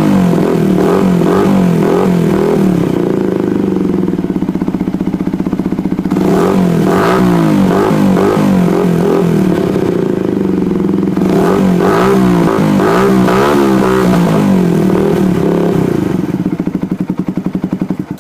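Yamaha YZF-R125's single-cylinder four-stroke engine running through a Scorpion exhaust, idling with several short throttle blips. Near the end the engine is switched off and runs down in slowing pulses to a stop.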